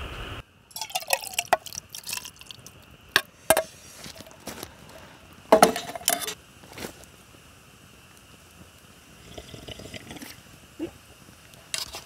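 Metal camp cookware, a steel cup and small pan, clinking as it is handled, with liquid poured and dripping; scattered sharp clinks, the loudest clatter about halfway through.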